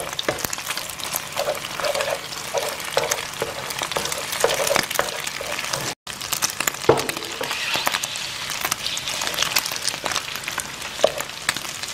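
Beaten egg sizzling in hot oil in a nonstick frying pan while a spatula breaks it up, with many quick taps and scrapes of the spatula against the pan. The sound cuts out for an instant about halfway through.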